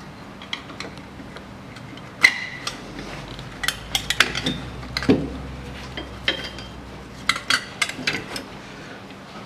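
Metal hand tools and steel brake parts clinking and knocking against each other in irregular sharp clicks with brief ringing. The loudest clink comes about two seconds in, with more clusters in the middle and near the end.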